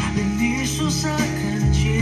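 A Mandarin pop ballad playing: guitar accompaniment over steady bass notes, with a wavering melody line above.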